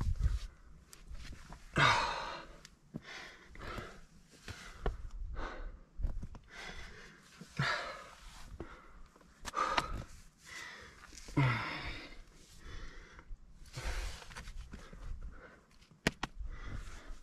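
A climber breathing hard from exertion on a steep scrambling pitch: loud puffing exhalations every two to three seconds, some with a sighing voice in them, and a couple of sharp clicks in between.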